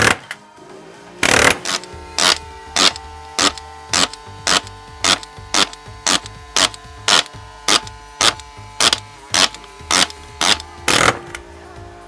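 Simpson Strong-Tie CCN64 collated connector nailer's multi-blow action driving connector nails through a steel plate into timber: sharp strikes about two a second, with a longer burst about a second in and another near the end. Background music plays under it.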